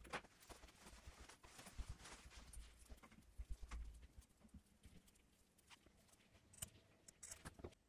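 Faint handling noise as a cotton-cord macrame doll is held and turned in the fingers: scattered light clicks, rubs and soft knocks.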